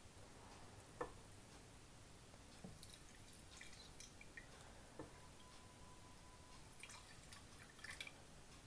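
Near silence with a few faint drips and light ticks, the clearest about a second in and another about five seconds in: hot ghee running through a fine wire-mesh strainer into a glass dish, with a steel ladle touching the strainer.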